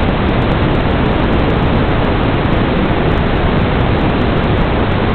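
Steady, loud white-noise static from an analog 5.8 GHz FPV video receiver's audio channel, with no transmitter signal being received.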